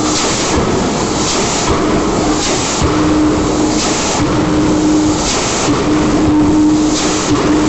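Power hammer running: a loud, continuous mechanical clatter with heavier surges about once a second and an intermittent hum underneath.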